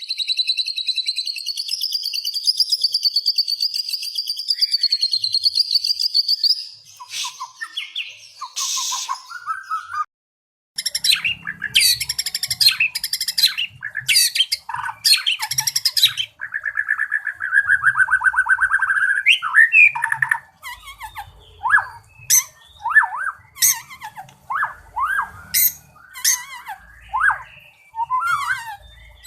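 White-rumped shama in full song, the varied, loud song of a bird in top form. It opens with a fast, high warbling trill, breaks off briefly about ten seconds in, then runs through rapid whistled phrases and ends on a string of short down-slurred whistles.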